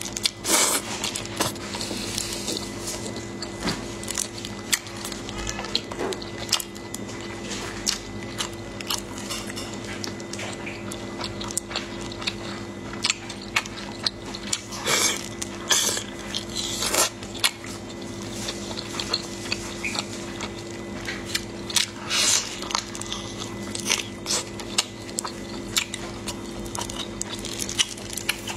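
Close-miked eating: biting into and chewing soft, sauce-coated squid, with wet mouth smacks and clicks at irregular intervals. A steady low hum runs underneath.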